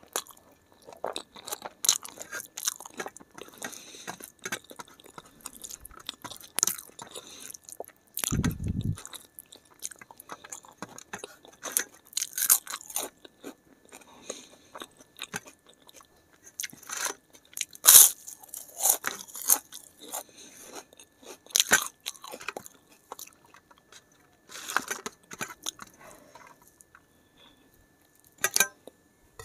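Close-miked mouth sounds of eating: chewing with irregular sharp crunches of crisp fried papad, and a dull thump about eight seconds in.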